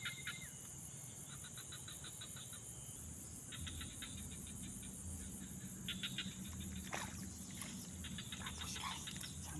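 Insects chirping in repeated short trains of rapid pulses every few seconds over a steady high-pitched insect hum, with a single sharp click about seven seconds in.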